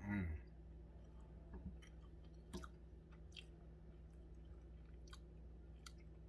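Faint close-up mouth sounds of chewing a macaron: soft wet clicks and smacks about once a second, after a brief voiced hum at the very start.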